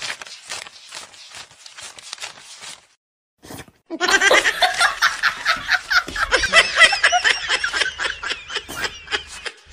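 Paper banknotes being flicked through one by one, a quiet papery riffle for about three seconds. After a short pause a person breaks into loud, quick, snickering laughter that runs to the end.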